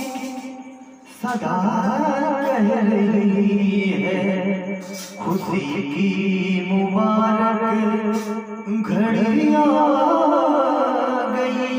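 Hindi wedding song with long, wavering held melody notes, likely a male voice, and a brief drop about a second in.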